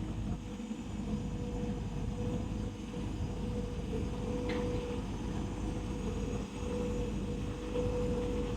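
Heavy diesel construction machinery running steadily: a low engine rumble with a steady droning tone above it.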